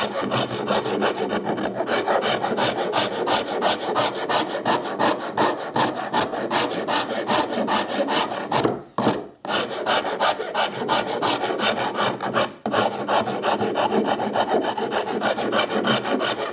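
Saw rasp filing the end of a sapele-and-ash laminated wooden tiller in rapid back-and-forth strokes, pausing briefly about nine seconds in.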